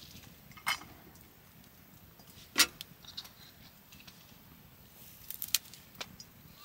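A few scattered sharp clinks and knocks over a quiet background, the loudest about two and a half seconds in and a short cluster of lighter ones near the end.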